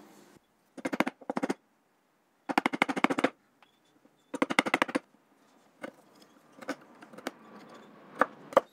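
Hand chisel cutting into the corners of routed slots in reclaimed hardwood, squaring them off. There are four short bursts of rapid clicking in the first half, then a handful of separate sharp taps.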